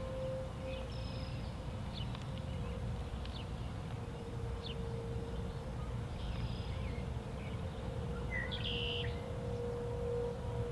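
Distant outdoor warning sirens sounding a steady tone that swells and fades slightly, with birds chirping over a low background rumble.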